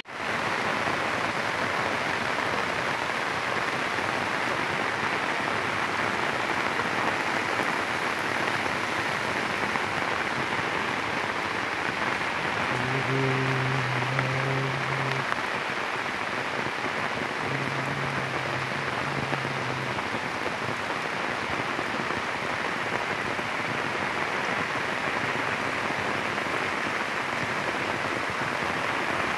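Heavy rain falling steadily, an even hiss. About halfway through come two steady low tones, each lasting about two seconds, a couple of seconds apart.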